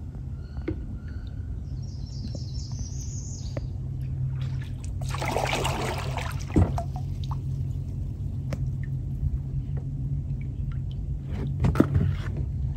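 Kayak paddle strokes in calm flood water: splashing and dripping, with one louder stroke about five seconds in. A few sharp knocks come in the middle and near the end, over a low steady rumble.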